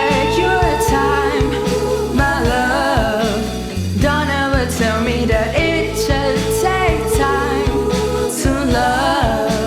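Pop song with band backing: guitar, bass and drums, with a voice singing wordless or unclear lines over them.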